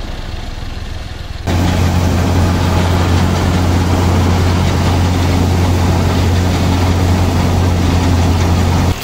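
Diesel engine of a tractor-mounted combine harvester running steadily while its unloading auger empties mustard seed into a trolley. The low, steady engine hum turns abruptly much louder about a second and a half in and drops back just as abruptly near the end.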